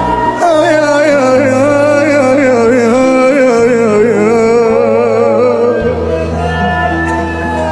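A male voice sings an Arabic devotional chant in a melismatic style, its pitch ornamented and wavering. Held low notes sound underneath and change twice.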